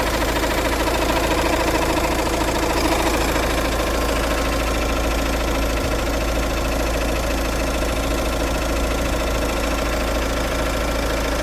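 2.0 HDi RHR four-cylinder common-rail diesel idling steadily, with an abnormal noise that appeared after its timing was replaced.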